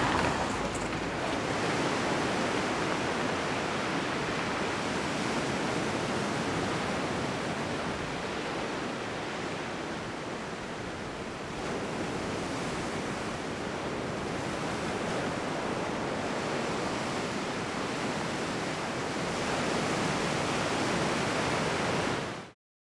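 Sea surf: small waves breaking and washing in as a steady rush of water, swelling a little now and then. It cuts off abruptly near the end.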